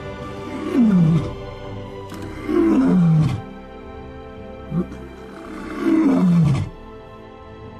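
A male lion roaring: three loud calls, each about a second long and falling in pitch, with a short grunt between the second and third. Steady background music plays under it.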